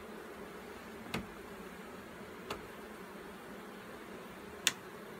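A swarm of honeybees buzzing steadily on and around the frames of an open hive, with three sharp clicks about a second, two and a half and four and a half seconds in as the wooden frames are handled.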